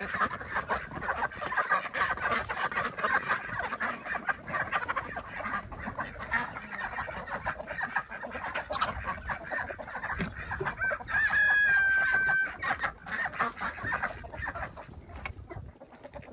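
A flock of chickens clucking steadily, with a rooster crowing once about two-thirds of the way through, the loudest sound here.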